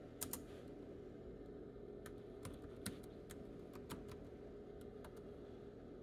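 Keys tapped on an HP laptop's built-in keyboard: scattered single key clicks, a quick pair just after the start and a run of taps in the middle, as a command line is typed and entered.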